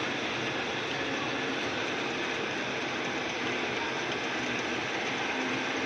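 Drill press running steadily while boring a hole in metal, a continuous even machine noise.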